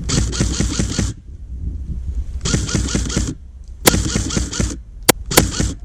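Airsoft electric gun firing on full auto: three bursts of rapid shots of about a second each, then a couple of single shots and a short burst near the end.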